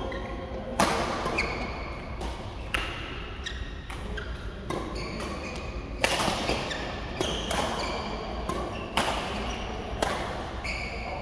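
Badminton rackets hitting a shuttlecock in a rally: sharp smacks every one to two seconds, each followed by a short ringing ping, echoing in a large hall.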